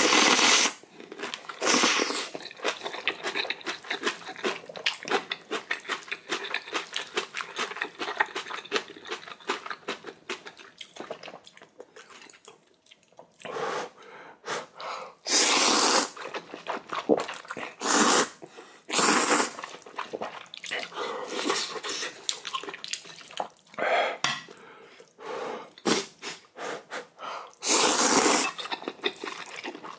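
Ramyeon noodles being slurped in loud bursts of about a second each, several times over, with chewing and mouth smacking in between.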